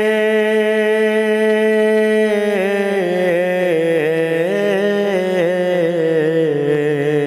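A voice singing a devotional naat, holding one long note for about two seconds and then drawing it out in wavering melodic turns without clear words, over a steady low drone.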